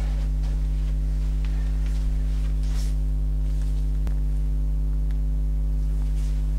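Steady low electrical mains hum with its overtones, unchanging, with a few faint ticks over it.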